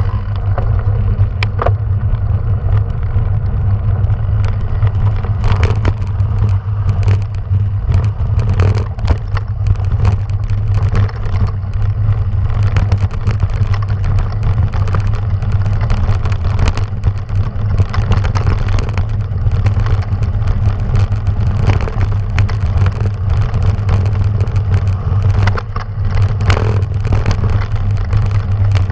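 Bicycle riding over a rough gravel track, heard from a camera mounted on the rider or bike: a steady low rumble with frequent sharp clatters and knocks as the bike jolts over stones.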